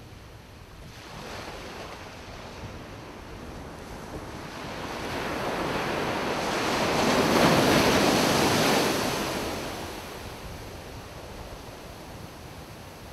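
Ocean surf breaking on a sandy beach: a wave's wash builds, is loudest a little past halfway, then fades, with a smaller surge about a second in.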